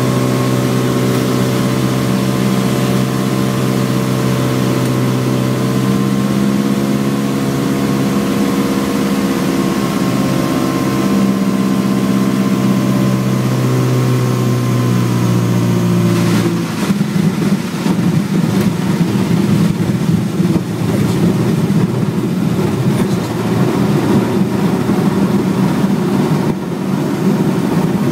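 Cabin sound of a Lake amphibious aircraft's single pusher piston engine running steadily on landing approach, easing slightly lower in pitch. About sixteen seconds in, the hull touches down and a rough rushing of water against the hull takes over, with the engine still running under it.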